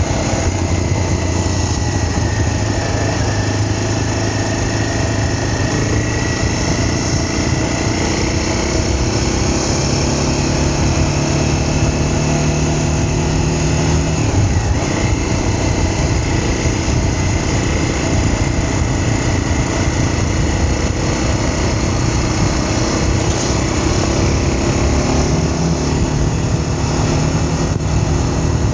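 A vehicle engine running steadily under way, its note shifting up and down a little as it travels.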